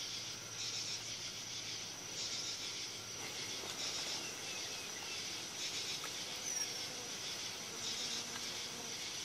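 Insects, crickets or grasshoppers, stridulating in a steady high-pitched chorus that swells and fades in stretches of a second or two. A bird gives a short falling whistle at the start and again about six and a half seconds in.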